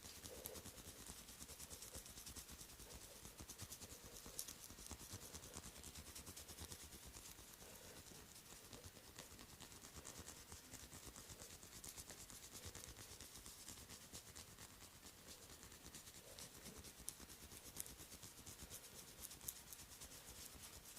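Faint, close-up massage sounds of fingers rubbing and scratching on hair and skin: a dense run of fine crackles, with a few sharper ticks near the end.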